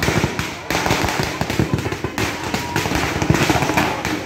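A string of firecrackers going off: a dense, rapid stream of sharp cracks and pops.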